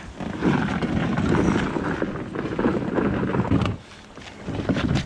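Rough rubbing and bumping handling noise as the Flycraft inflatable boat is manhandled down a dirt bank, mixed with footsteps; it drops away briefly just before four seconds in, then resumes.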